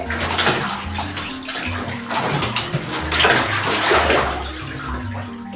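Bath water sloshing and splashing in a bathtub as a cat is held and washed in it, with several louder splashes about three to four seconds in. Background music plays underneath.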